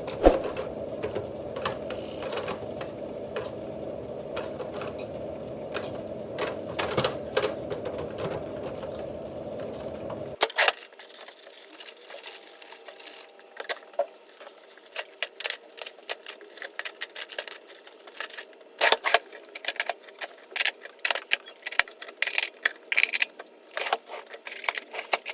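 Rapid, irregular clicking and clattering, like small hard objects being handled. A steady hum sits under it for about the first ten seconds, then cuts off abruptly, leaving only the clicks.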